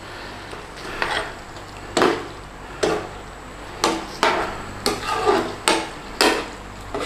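A stirring utensil knocking and scraping against a pan as a curry is stirred over the flame: about ten sharp clatters at uneven intervals, coming closer together in the second half.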